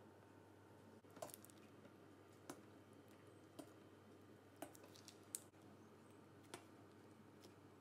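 Near silence: faint steady room hum with about six soft, scattered clicks.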